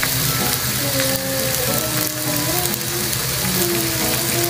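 Squid frying in oil in a wok, a steady sizzle, under background music with a simple melody.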